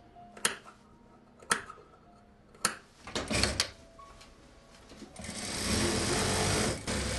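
Three sharp snips of tailor's shears about a second apart, clipping notches into a jacket's seam allowance, then the rustle of the padded jacket being moved. Near the end an industrial sewing machine runs fast for about two seconds, stitching a seam.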